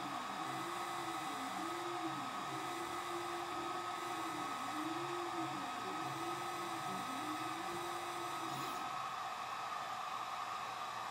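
Algolaser DIY kit diode laser engraver at work: its stepper motors whine in repeated rising and falling sweeps as the laser head moves back and forth, over the steady hum of a cooling fan. About three-quarters of the way in the stepper whine stops, leaving the fan running: the engraving job has finished.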